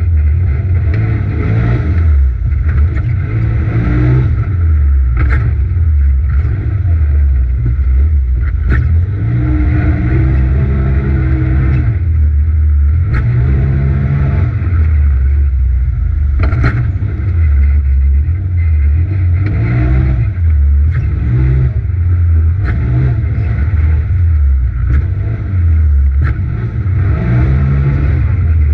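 Polaris RZR XP Turbo side-by-side's turbocharged twin-cylinder engine, heard from inside the cab, revving up and falling off again and again as it accelerates and lifts around a dirt track, with a few sharp knocks from the chassis in between.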